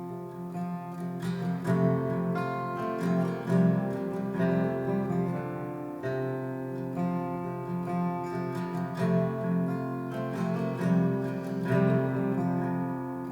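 Acoustic guitar playing a plucked and strummed instrumental passage, with chords ringing on.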